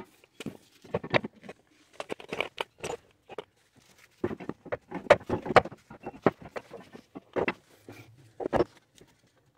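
Scattered, irregular clicks, clinks and knocks of hand tools and metal suspension parts being handled while a front strut is worked loose on a car.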